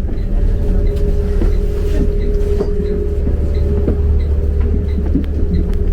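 Steady low rumble and hum of a moving public-transport vehicle heard from inside, with faint regular ticking and a few light knocks.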